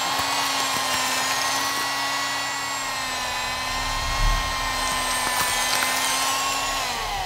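Electric autopsy bone saw cutting into the sternum: a steady high whine that winds down, falling in pitch, near the end.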